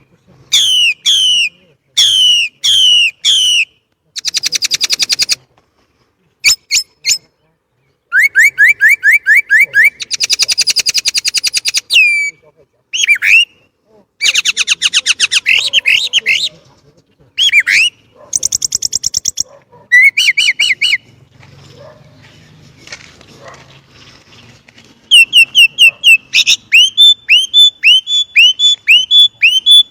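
Chinese blackbird singing loudly in varied, fast phrases: runs of repeated down-slurred whistles, quick trills and buzzy rattles, broken by short pauses. The song goes quiet for a few seconds about two-thirds through, then ends in a rapid series of clear repeated notes.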